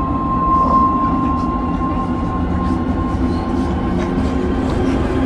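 Ominous movie-trailer drone: a steady low rumble with a held high tone and sustained lower notes, unchanging throughout.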